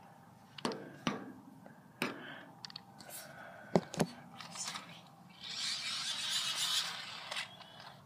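Handling noise: several sharp taps and knocks in the first half, then a breathy hiss for about two seconds.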